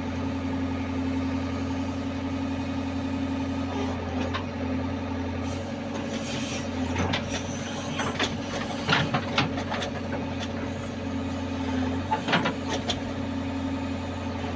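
A JCB construction machine's engine running steadily, with a series of sharp knocks and clanks about halfway through.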